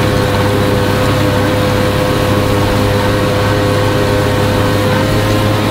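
Tractor engine running under load with a front-mounted mower cutting grass, heard close to the mower, with a steady whine over the drone.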